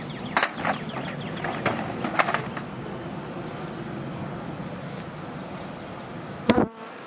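Honey bees buzzing in a steady low hum around an open hive, with a few sharp wooden knocks and clatters as hive covers and boxes are handled, the loudest near the end.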